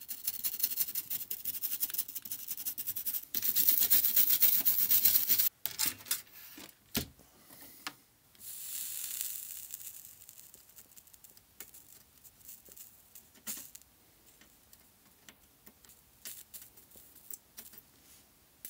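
Scratchy hissing from tool work on the corroded pads of a circuit board being cleaned with solder wick, flux and a soldering iron. The hiss is loudest for a couple of seconds near the start, breaks off, and comes back more faintly after a single thump about seven seconds in, then thins to faint scratches and ticks.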